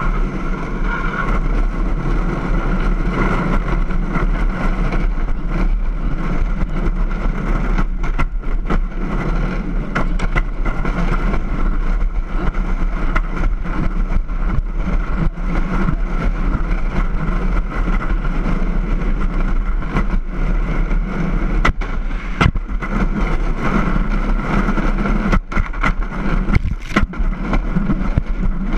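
Wooden wheels of an unpowered soapbox kart rolling fast on asphalt, giving a steady rolling rattle with many sharp knocks and jolts over the rough, cracked road surface.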